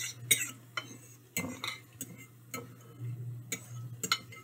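Metal spoon clinking and scraping against a ceramic bowl while tossing fried plantain chips with spices: about ten sharp, irregular clinks. A faint steady low hum runs underneath.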